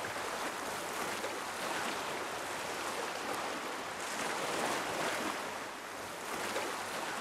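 Sea waves washing against the shore: an even rushing noise that swells and fades a few times.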